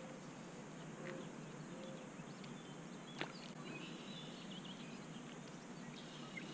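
Quiet outdoor ambience: a steady low hiss, faint bird chirps past the middle, and a few small sharp clicks, the clearest about three seconds in.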